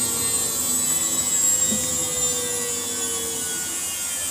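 Samsung washing machine running in service mode: a steady motor hum and whine, with a tone that slowly drops in pitch and fades out about three and a half seconds in.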